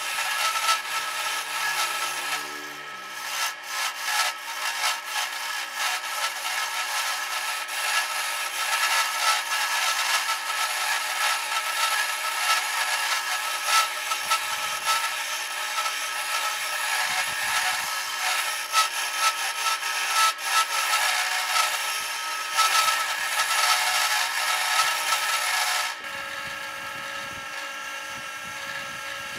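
A flat chisel scraping and cutting a spinning wooden hammer handle on a benchtop wood lathe, a steady rasping over the lathe motor's whine. About 26 seconds in the cutting stops and the lathe runs on alone, quieter.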